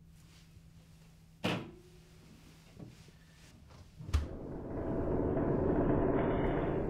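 Small fridge door shut with a sharp click, then pulled open a few seconds later with a thump, followed by a loud rushing noise that swells for about three seconds.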